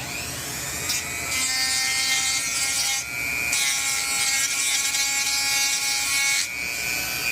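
A small high-speed rotary tool spins up to a steady whine and grinds in two passes of a few seconds each, taking down the metal leg of a circuit-board terminal to lower it.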